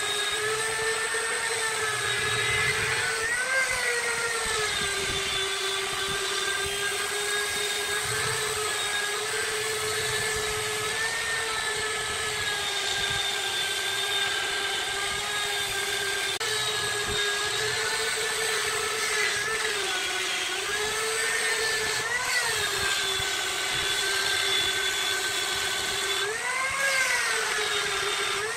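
Electric power tool motor running steadily with a high whine; its pitch briefly rises and falls a few times as the load on it changes.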